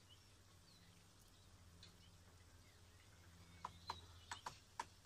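Near silence with a faint steady low hum, and a few small sharp clicks in the last second and a half, from fingers handling the earphone's in-line microphone held at the mouth.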